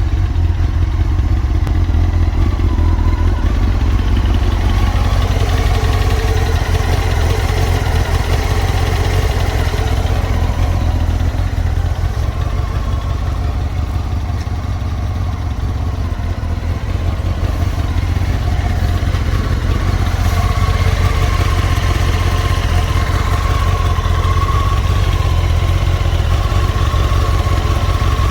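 Honda CBR954RR (SC50) inline-four engine running steadily, with a slight dip in level midway. The owner diagnoses this engine with piston slap and scoring of its AluSil cylinders.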